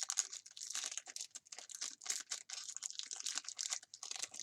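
Foil Pokémon booster pack wrapper crinkling as it is handled and ripped open, a quick, continuous run of sharp crackles.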